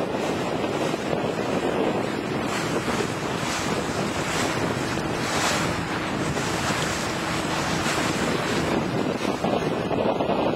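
Wind buffeting the microphone over the rush of water along the hull of a boat under way: a loud, steady rushing noise that swells briefly a few times.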